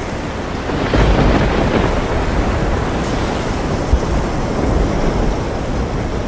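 Wind gusting hard on the microphone over waves at sea, a dense, loud rushing that swells about a second in.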